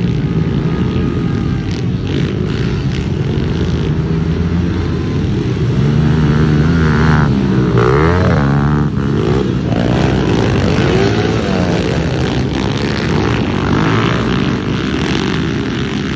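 Several pit bikes racing on a dirt track, their small engines revving up and down against one another as the pack passes. The sound is loudest about halfway through, as the bikes go by close.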